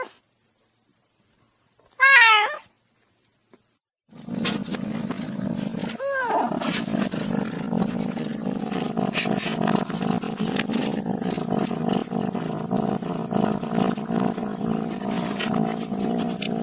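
A cat cub calls: one short mew that rises and falls about two seconds in. From about four seconds comes a continuous low, gritty vocal sound with a second short mew falling across it around six seconds.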